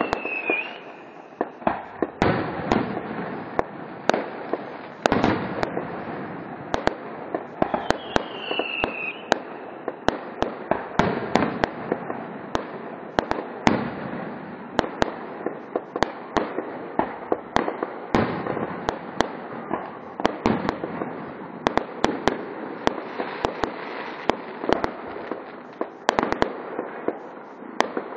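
Fireworks display: aerial shells bursting in a dense, irregular run of sharp bangs throughout. A short falling whistle sounds right at the start and another about eight seconds in.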